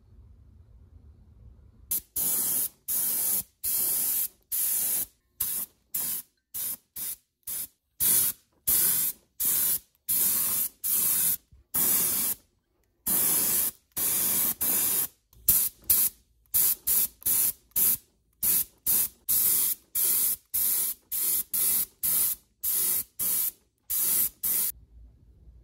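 Paint spray gun hissing in many short trigger pulls, about one to two a second, as it applies green enamel to the grinder's cast parts.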